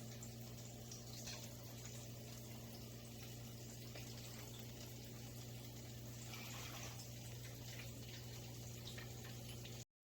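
Faint room tone: a steady low electrical hum under light hiss.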